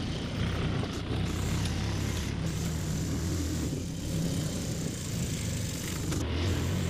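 Auto-rickshaw's small engine running steadily as it drives along, heard from inside its open cabin as a low, even hum.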